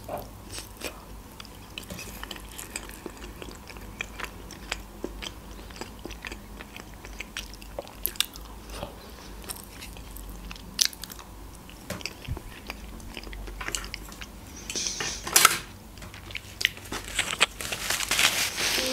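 Close-up chewing and biting of a sushi roll: soft crunches and wet mouth clicks. A louder rustling noise comes near the end.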